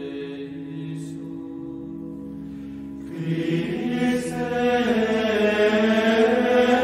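Background music of chanting voices: low held notes, then about three seconds in a louder choir of voices comes in, singing long sustained notes.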